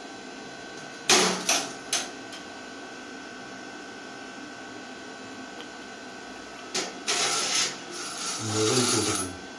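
Hand tools clicking and scraping on the metal pipe fittings beneath an instant gas water heater as its hot-water line is connected: three sharp clicks about a second in, then two longer rasping scrapes near the end.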